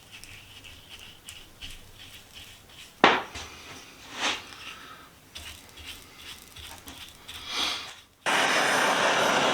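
Metal parts knocked and scraped as they are handled, then a gas torch lit about a second before the end, starting a loud, steady roar that cuts in all at once.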